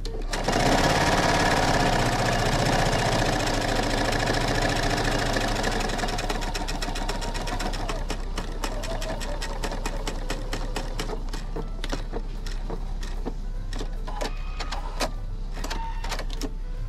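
Pfaff sewing machine stitching together layered flannel quilt squares. It starts about half a second in and runs fast for the first few seconds, then goes on more slowly with separate needle strokes.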